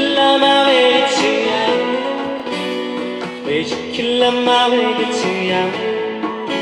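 A singer performing a song with guitar accompaniment.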